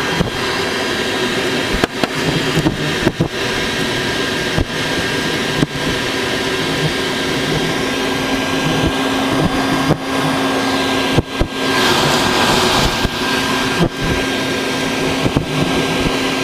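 Vacuum running steadily as its hose sucks up bald-faced hornets at their nest, with frequent sharp clicks throughout. The rushing hiss grows brighter for a moment about twelve seconds in.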